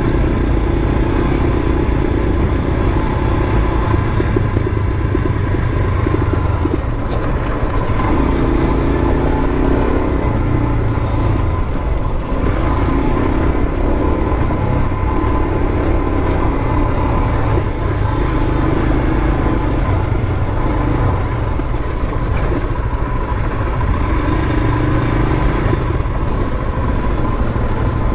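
Royal Enfield Himalayan's single-cylinder engine running as the bike rides along, its note swelling and easing every few seconds.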